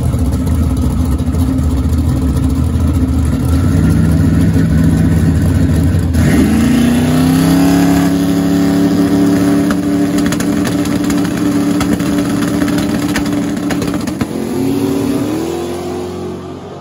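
LSX V8 in a rear-mount-turbo Chevy Colorado drag truck: the engine rumbles at the starting line, revs up sharply about six seconds in and holds a steady high note, then rises again and fades as the truck launches away down the strip near the end.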